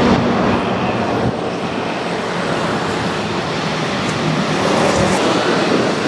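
Waterfall rushing, a steady even noise of falling water, with a faint low engine hum underneath in places.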